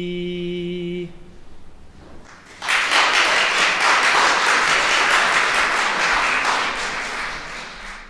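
A man's unaccompanied voice holds the final note of a Cossack spiritual verse, cutting off about a second in. After a short pause an audience breaks into applause, which tapers off slightly near the end.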